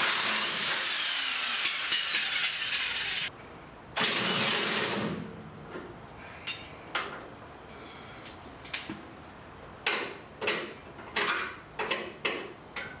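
A handheld power tool runs in two bursts: the first about three seconds long with a falling whine through it, the second about a second long. It is followed by a series of short metallic clinks and clanks of tools and parts being handled.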